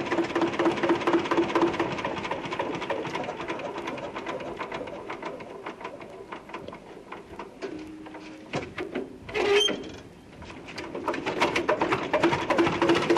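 Punk rock recording without vocals: a fast, even rhythm over a steady droning note fades down, breaks off briefly about ten seconds in, then builds back up.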